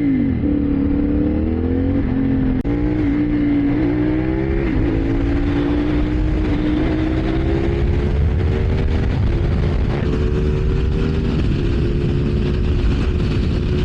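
CFMoto 450SR's parallel-twin engine pulling hard at speed, shifting up about three times in the first five seconds, then its pitch climbing slowly in a high gear. Heavy wind rush on the microphone.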